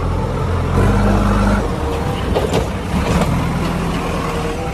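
Excavator engine running with a low, steady hum whose pitch shifts a few times, with a few clanks about two and a half and three seconds in.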